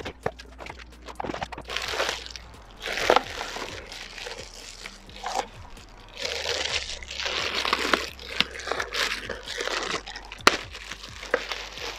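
Packaging being handled and unwrapped, crinkling and rustling in irregular bursts, the longest a little past halfway, with a sharp click near the end.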